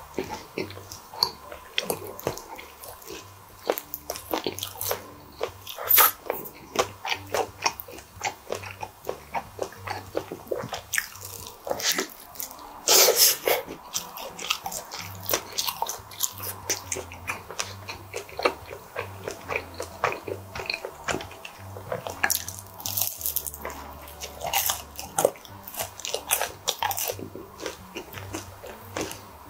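Close-miked eating sounds: biting into and chewing pizza, with many small wet mouth clicks and crunches. The loudest crunches come about six and thirteen seconds in.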